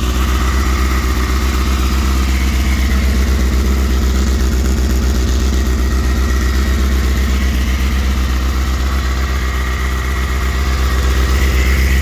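A 2006 Suzuki GSX-R600's inline four-cylinder engine idles steadily through a Hindle Evolution full exhaust while warming up after a cold start.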